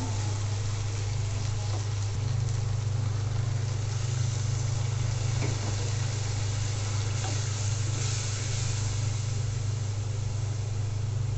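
Mola fish and sponge gourd curry sizzling and bubbling in a kadai just after a little water has gone in, stirred now and then with a wooden spatula, over a steady low hum.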